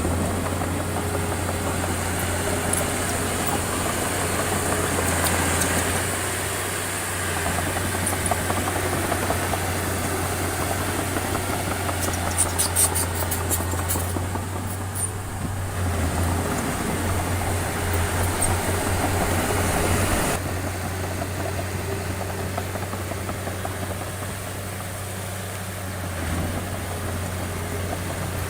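Heavy construction machinery's diesel engine running steadily, with a quick run of clicks about twelve seconds in. The sound changes abruptly about twenty seconds in.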